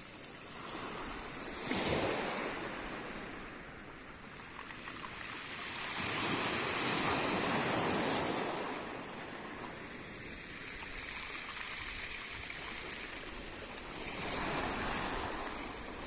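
Small sea waves breaking and washing over a pebble beach, swelling three times: a sudden surge about two seconds in, a longer wash in the middle, and another near the end.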